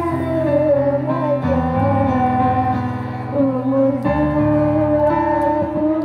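Two young women singing a slow melody together through microphones and a PA, over sustained chords from an electronic keyboard.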